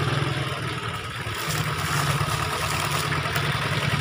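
Kubota L1500 compact tractor's diesel engine running steadily while pulling a loaded trailer, easing off briefly about a second in.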